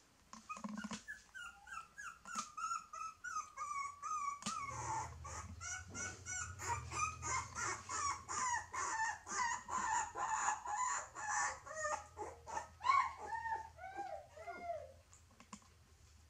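Puppy whimpering and yelping in a rapid run of short, high cries, ending in a few longer whines that fall in pitch.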